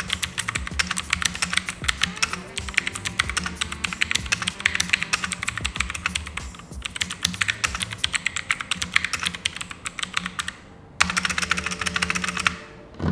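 Fast typing on a mechanical keyboard with clicky blue switches: a dense stream of sharp, loud clicks. It breaks off briefly near the end, resumes for a second or so, then stops.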